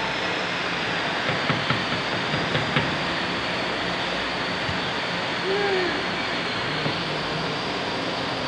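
Micro-hydro turbine-generator units with spiral casings running, a steady machine noise with a low hum under it. A few light clicks come between one and three seconds in.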